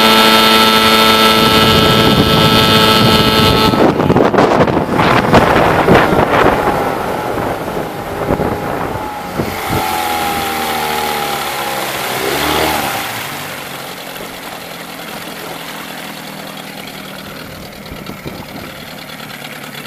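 Johnson 15 HP two-stroke outboard running at full throttle with the jon boat on plane, then throttled back about four seconds in. Its pitch falls while water splashes around the hull as the boat comes off plane, and it settles to a low, steady idle for the second half.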